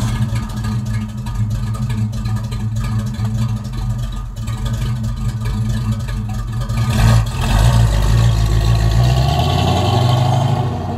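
1972 Ford Mustang Mach 1's 351 Cleveland V8 through dual Flowmaster Super 44 mufflers on 2.25-inch pipes, idling steadily and low. About seven seconds in it revs up as the car pulls away, then keeps running louder as it drives off.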